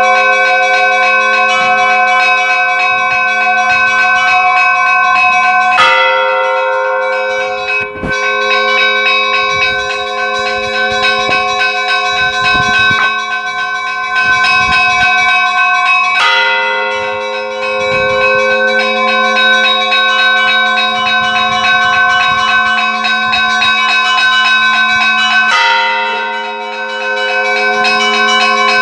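Church bells ringing, many overlapping tones sounding at once and ringing on. Fresh strikes come about every ten seconds.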